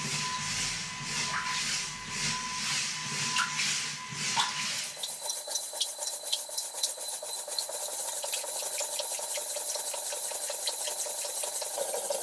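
LEGO Technic wave generator running: its motor and gears hum and pulse regularly while the paddle churns the water in a glass tank, which sloshes and hisses. About five seconds in the low hum drops away, leaving a fast ticking over a steady hiss.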